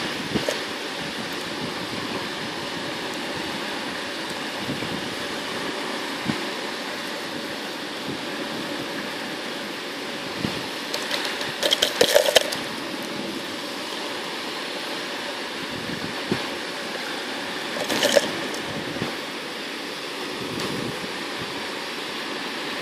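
Steady rushing background noise, broken by short clusters of clicks about twelve seconds in and again around eighteen seconds.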